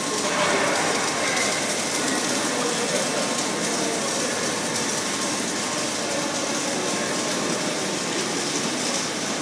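Automatic submerged-arc welding line running on an I-beam: a steady, even machinery noise with no breaks or impacts.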